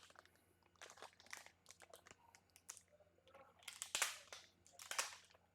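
Packaging from a rifle-scope box rustling and crinkling in short, irregular bursts as the contents are handled, loudest about four and five seconds in.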